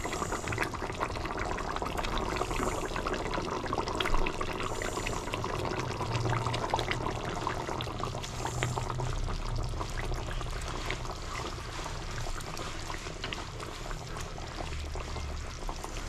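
Thin curry gravy simmering in a steel kadai, a steady bubbling with many small pops, with soft splashes as fried chhana koftas are dropped into it.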